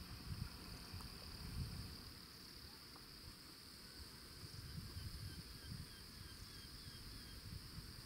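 Insects chirring steadily in a faint, continuous high band, with an uneven low rumble underneath.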